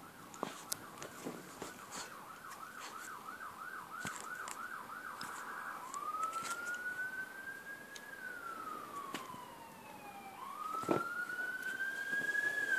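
Emergency vehicle siren, faint, in fast yelp mode that warbles about two to three times a second. About six seconds in it switches to a slow wail that rises and falls. A few light knocks are heard, with one sharper knock near the end.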